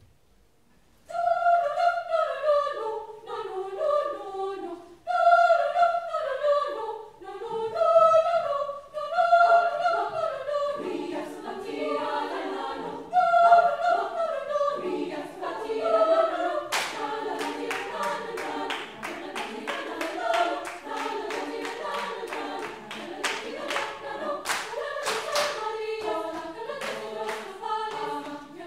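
Women's choir singing together in phrases with short breaks, beginning about a second in. From about 17 seconds in, the singers clap a steady rhythm under their singing.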